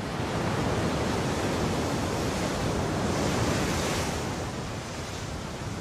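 Ocean surf: a steady rush of waves that swells to a peak about three seconds in and eases off near the end.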